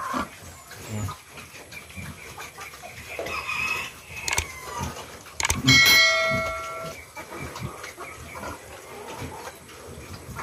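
Pigs feeding at a trough, grunting and snuffling, with hens clucking. A bit past halfway a bell chime from a subscribe-button animation rings out for about a second, the loudest sound.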